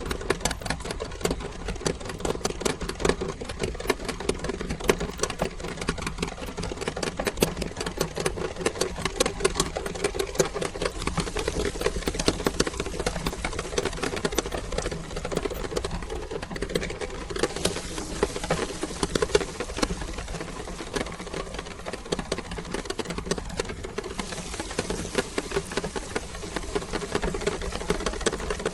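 Electric meat grinder running steadily, a constant motor hum with a dense crackle of clicks over it as it grinds Orbeez water beads.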